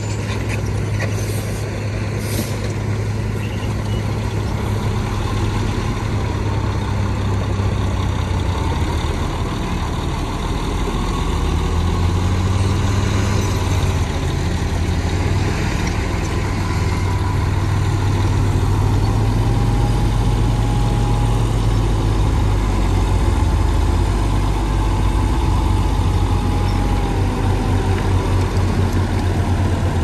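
Heavy diesel engine of earthmoving machinery running steadily with a deep, even hum, and a faint high whine that wavers in pitch now and then.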